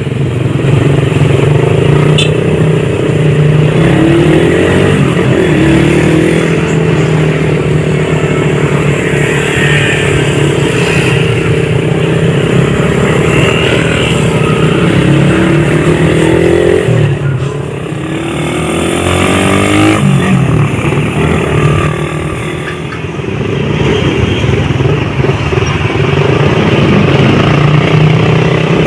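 Motorcycle engine running while riding, its pitch climbing several times as it accelerates, with two brief drops in engine speed in the second half.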